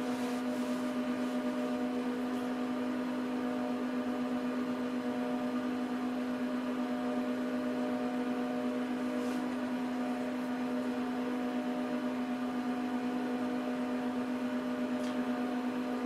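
Dell PowerEdge R710 server's cooling fans running steadily: a constant hum with one strong low tone and fainter overtones above it.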